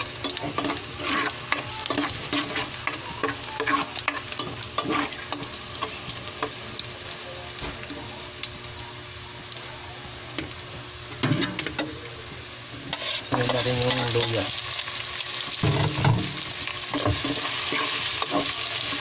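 Chopped garlic and onion sizzling in hot oil in a metal pot, with a utensil scraping and clinking against the pot as it is stirred. The sizzling grows louder in the last third.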